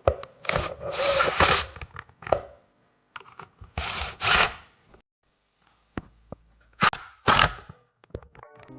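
Bolts being tightened into a wooden table's legs, heard as four or five short bursts of scraping and grinding with pauses between.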